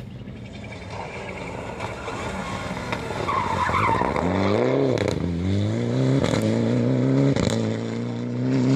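Mitsubishi Lancer Evolution IX rally car's turbocharged four-cylinder coming through a tight bend with a brief squeal of tyres, then accelerating hard away through the gears. The engine note rises and drops back at each shift, with a few sharp pops.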